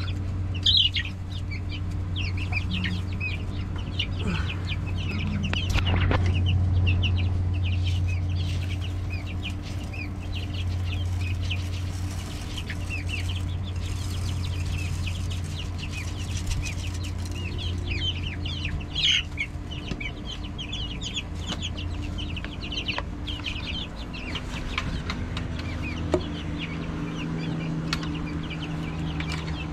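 A flock of young chickens peeping and cheeping, with many short high chirps coming thick and fast throughout, over a steady low hum.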